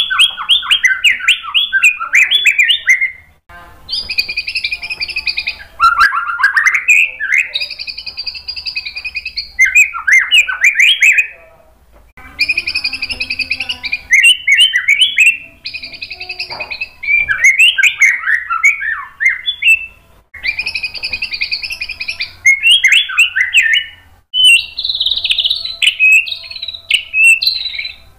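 White-rumped shama (murai batu) singing loudly in repeated phrases a few seconds long, each mixing held whistled notes with fast warbled runs, with short pauses between phrases.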